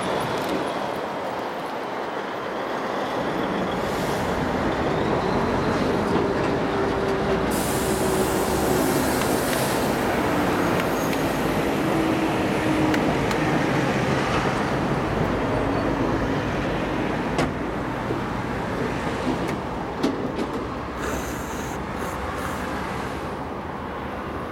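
Heavy diesel tractor units passing close by on a city road: a DAF XF hauling an empty container chassis, then a Renault Premium running without a trailer. Their engine drone and tyre noise swell and fade as each goes by, over steady traffic, with a brief high hiss about seven seconds in.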